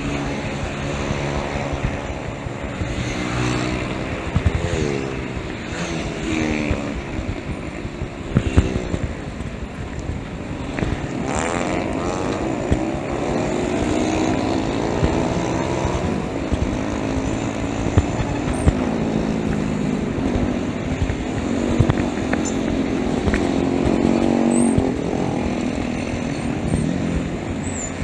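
Road traffic heard from a bicycle in the thick of it: small motorcycle and motorized tricycle engines running and revving close by, their pitch repeatedly rising and falling as they speed up, slow down and pass.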